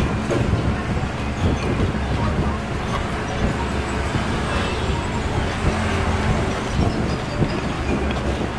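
Wind buffeting an outdoor microphone: a continuous low rumble under a rushing noise.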